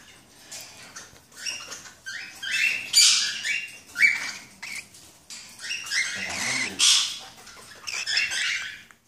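Cockatiels chirping and calling in a rapid string of short, shrill notes, some sliding up or down in pitch, among them a juvenile male's early attempts at song.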